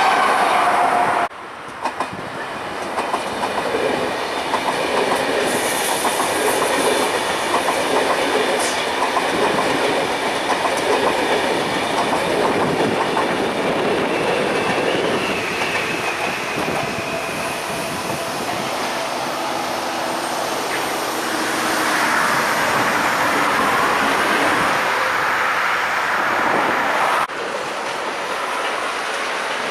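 ČD Railjet passenger train passing, its wheels clattering over rail joints and points, with a high whine over roughly the first half. The sound cuts off abruptly near the end.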